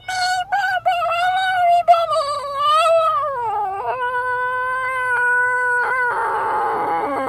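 A long high-pitched squeal, like air escaping from a balloon's stretched neck. It wavers at first, slides down in pitch about three and a half seconds in, holds one steady note, then turns rough and hissy near the end.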